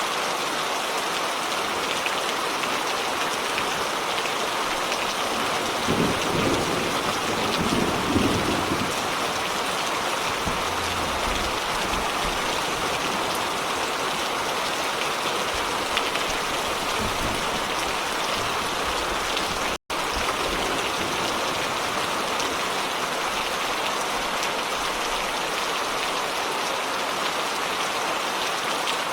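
Steady heavy rain falling, with a low rumble of thunder swelling about six to nine seconds in. The sound cuts out for a split second about two-thirds of the way through.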